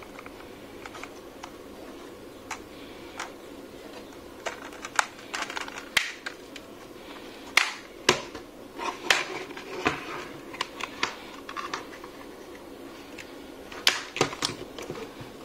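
Irregular sharp plastic clicks and snaps as the diffuser cover of an LED ring light is pried off its housing with a thin tool, coming in clusters, densest around the middle and again near the end.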